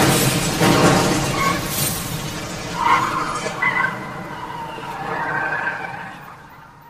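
The end of a heavy rock song: the band's final distorted chord ringing out and steadily fading away, with a few sustained guitar notes over the decaying wash.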